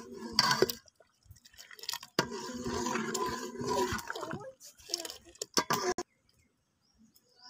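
Steel ladle stirring rice and milk in an aluminium pot: liquid sloshing, with a few sharp clinks of the ladle against the pot, then quiet for the last second or so.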